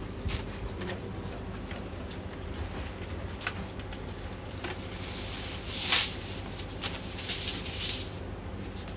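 Aluminium foil pulled from its box and torn off, crinkling loudly about six seconds in and again a second later for about a second, over a steady low kitchen hum with a few light clicks.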